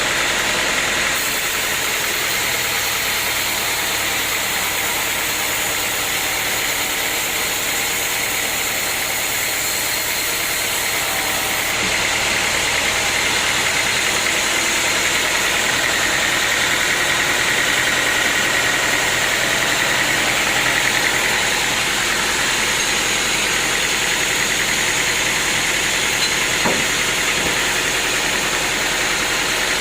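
Sawmill machinery running steadily, a continuous mechanical drone with a high whine held through it.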